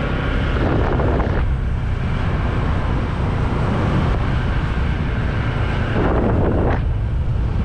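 Wind rushing over the microphone of a moving Honda ADV scooter, with its engine running underneath. The noise swells briefly about a second in and again near the end.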